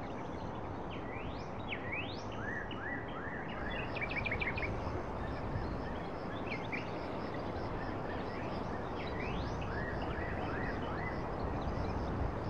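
Birds chirping over a steady rushing background noise. The calls are short rising whistles, quick repeated chirps and a brief rapid trill about three and a half seconds in.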